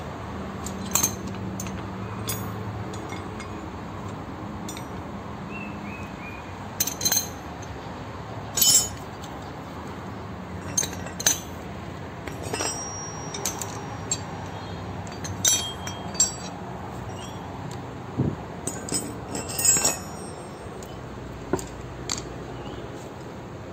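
Steel hand tools (T-handle socket wrenches, combination spanners, screwdrivers) clinking as they are set down one at a time on a concrete floor and against each other: about a dozen short, ringing metal clinks at irregular intervals.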